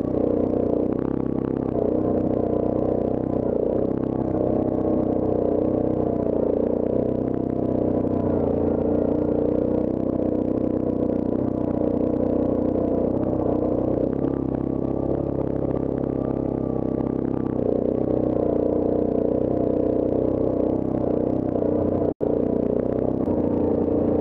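Yamaha Grizzly ATV's single-cylinder four-stroke engine running steadily under way, with a split-second dropout near the end.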